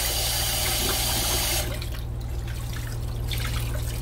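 Kitchen tap running into a stainless steel sink and over rice being rinsed in a glass dish; the tap is shut off about a second and a half in, leaving the trickle and drips of the cloudy rinse water being poured off.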